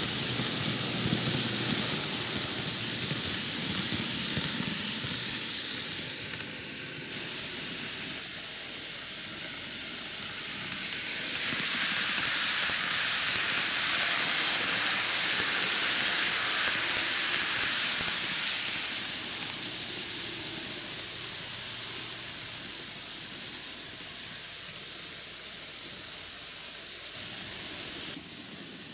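Micro Ace N-gauge Keio 9000 series model train running on TOMIX superelevated track: a steady hissing rattle of wheels on rails and motor. It is loud as the train passes close at the start, fades, swells again as it passes about 11 to 18 seconds in, then dies away as it leaves.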